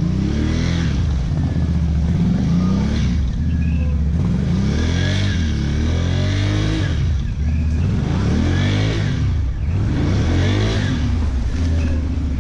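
ATV engine running, revved up and back down about six times in quick succession, with a steady low idle between the revs.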